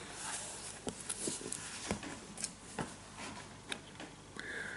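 Quiet small room with faint, scattered small clicks and ticks, and a faint steady high tone coming in near the end.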